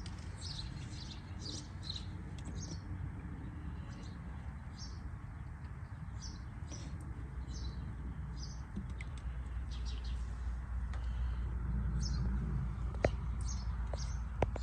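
Small birds chirping, repeated short high calls, over a steady low hum, with a couple of sharp clicks near the end.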